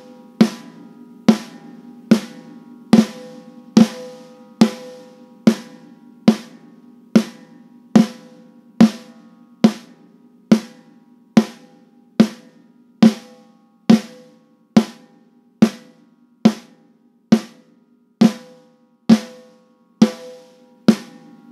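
Recorded snare drum played back, struck in a steady single-hit pattern a little faster than one hit a second, with a parallel compressor blended in. Each hit rings on with a tail that the compression brings up, so the room reflections sound like a natural reverb.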